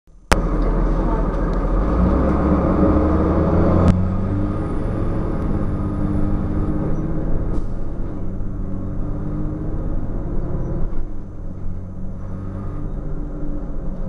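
A Cummins ISC inline-six diesel engine heard from inside a 2002 Blue Bird CS transit bus, running with its note climbing over the first few seconds. A sharp click comes near four seconds, and the engine then runs steadily.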